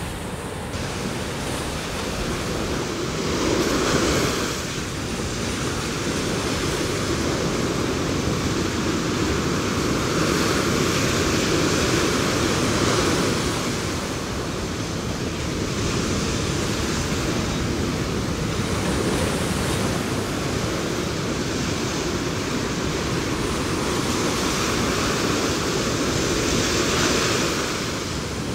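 Ocean surf breaking on a beach: a steady rushing wash that swells as waves crash, loudest about four seconds in, again around ten to thirteen seconds, and near the end.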